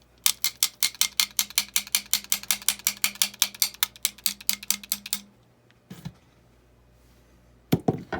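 Cordless drill/driver running with a steady motor hum and a rapid, regular clicking, about eight clicks a second, for about five seconds, then stopping. A single knock follows, and a sharp clatter comes near the end.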